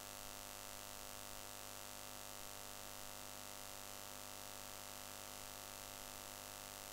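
Faint, steady electrical hum with a light hiss: the recording's background noise floor, with no other sound.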